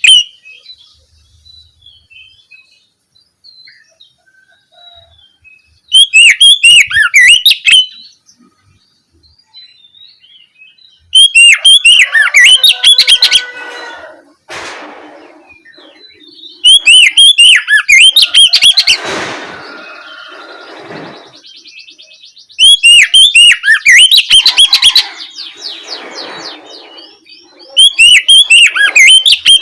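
Oriental magpie-robin (kacer) singing loud, open 'ngeplong' song. It sings five quick, high, warbling phrases of about two seconds each, with pauses of a few seconds between them.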